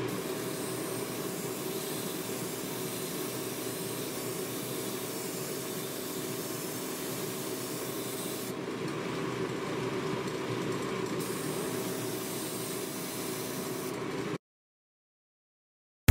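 Spray paint hissing steadily as it coats a wooden egg, with a faint steady hum underneath; it cuts off suddenly about two seconds before the end.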